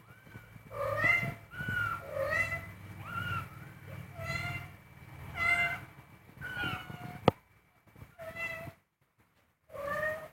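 Very young kittens mewing over and over, short high-pitched cries about one or two a second. A single sharp click about seven seconds in.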